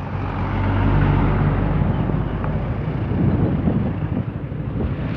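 Ride noise on a moving motorcycle: the bike's engine running and wind rushing over the microphone. A tanker truck's diesel engine passes close by, loudest about a second in.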